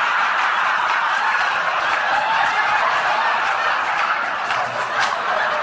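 A large audience laughing, a dense continuous wave of laughter that eases slightly near the end.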